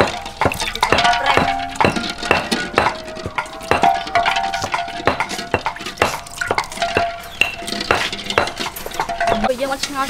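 Eggs clinking and knocking against a metal wok and against each other as they are set into shallow water in it, about two to three sharp knocks a second at an uneven pace, some leaving a short metallic ring.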